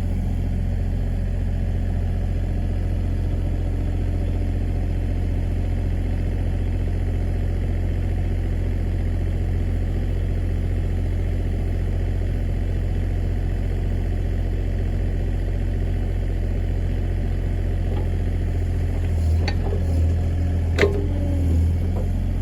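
Backhoe's diesel engine running steadily with a low, even drone, with a few sharp knocks near the end.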